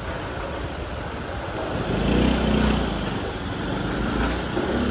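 Street traffic noise, with a motor vehicle's engine passing close and loudest about two to three seconds in.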